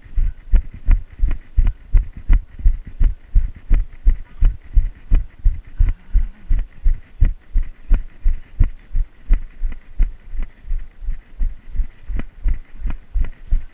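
A runner's footfalls on a trail: a steady run of low thuds, about three a second, at a jogging cadence.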